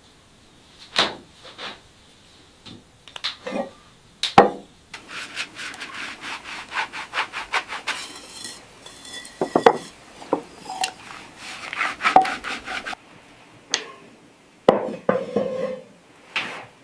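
Rubbing and scraping with scattered sharp knocks, like wood being handled. In the middle comes a run of fast, even scraping strokes; the knocks and rubbing go on irregularly after it.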